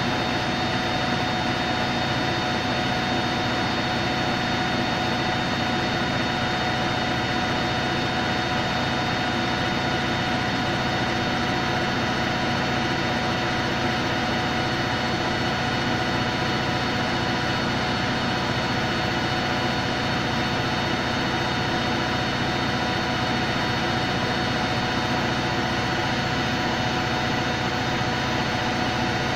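Hoover Electronic Automatic de luxe washing machine spinning at a steady full speed on its spin-dry cycle: a constant motor and drum whine with several fixed tones over a steady rumble.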